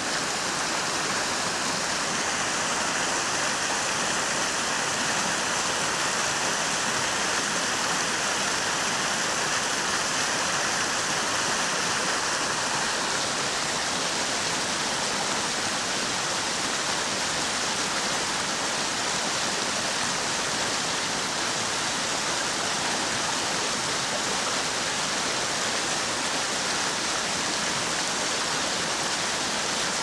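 Steady rush of a rocky river and its cascades. A faint, steady high tone lies over it for the first dozen seconds.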